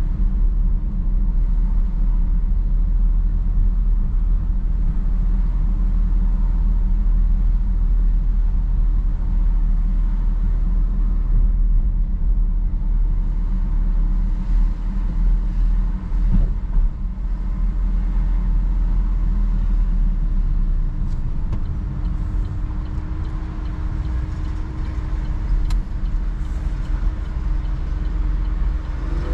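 A car driving slowly: the steady low rumble of its engine and tyres on the road, with a faint steady hum, easing slightly in loudness over the last few seconds.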